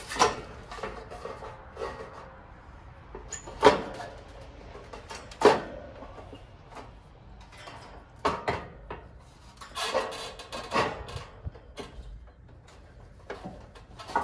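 Handling knocks and clunks from the top cover of an air-conditioner condenser unit being shifted and set back into place: a series of sharp knocks, the loudest about four and five and a half seconds in, with quieter scraping and rattling between.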